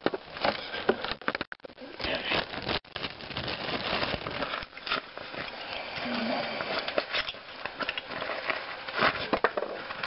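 Plastic packaging crinkling and rustling, with many small irregular clicks, as the outboard motor's accessory parts are handled out of their bags. The sound breaks off for an instant twice.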